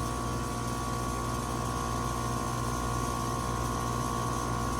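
Air-conditioning compressor running steadily, with a high-pitched whine, described as "screaming", over a low hum. The students take the sound for a system definitely low on refrigerant charge.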